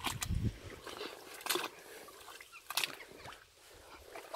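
A few irregular footsteps through a shallow river, with faint sloshing water.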